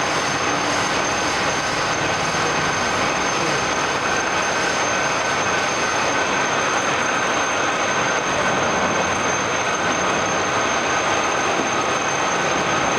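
All-geared radial drilling machine running: a steady dense mechanical noise from its gearbox and spindle drive, with a constant high whine over it.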